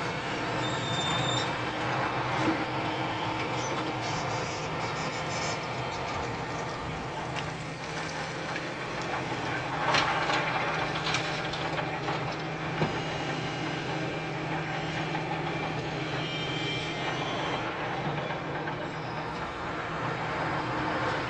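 Large hydraulic excavator, a SANY SY365H Pro, working: a steady diesel drone with brief high metallic squeals and scattered clanks. The loudest knock comes about ten seconds in.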